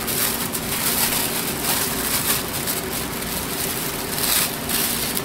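Clear plastic bag crinkling and rustling as it is pulled and torn open by hand, over a faint steady low hum.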